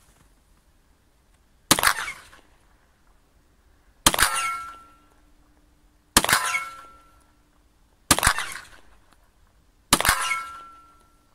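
Five 9 mm shots from a Glock 43 subcompact pistol, fired slowly about two seconds apart. Three of them are followed by a short metallic ring as the bullet hits a steel gong target.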